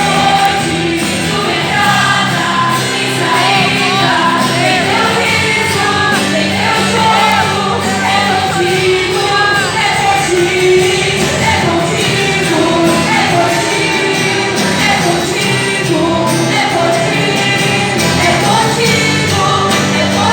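Gospel worship music: voices singing a melody over sustained instrumental accompaniment with a steady bass line.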